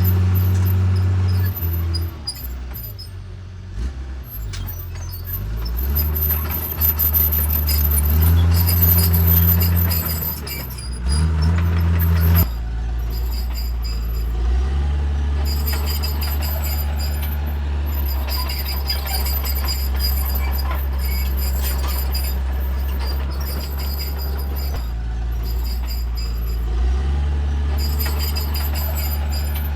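Bulldozer's diesel engine working under changing load, its pitch rising and falling for the first dozen seconds, then running steadily. A thin high squeal comes and goes over it.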